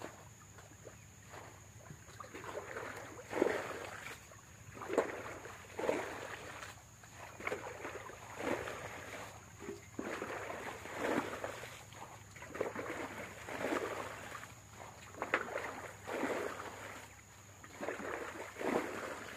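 Irregular splashes and sloshes of water, roughly one every second or so, over a faint steady high insect drone.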